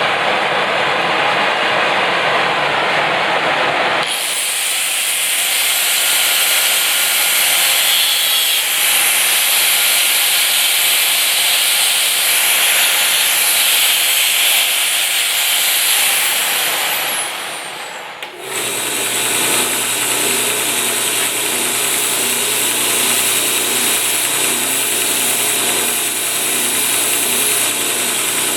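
A power tool running steadily, with its sound changing abruptly twice, about four seconds in and about eighteen seconds in. The last stretch carries a steady low hum under a fast, even rattle.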